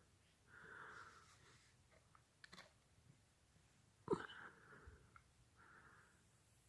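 Near silence with a few faint clicks and soft hisses, and one sharper click about four seconds in.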